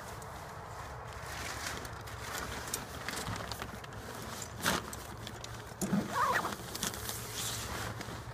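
Fabric rustling and scraping as a padded nylon glider bag is pulled along over a rigid hang-glider wing, with a few sharper knocks and scrapes about halfway through and just after.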